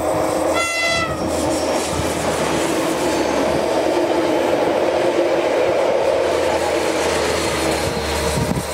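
Diesel multiple unit passing close by: a steady drone of its engines over the rumble and clatter of wheels on the rails. About half a second in, a brief high tone sounds, dipping slightly in pitch.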